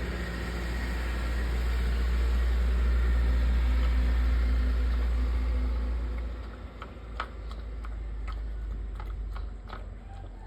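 Low engine rumble of a passing motor vehicle, swelling over the first few seconds and fading away about six seconds in. A scatter of light clicks follows.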